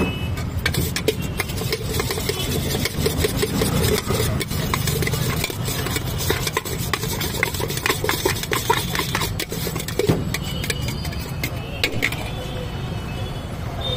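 Steel utensils clinking and scraping as food is scooped and mixed by hand in a stainless steel pot, many irregular clinks over a steady low rumble of street traffic.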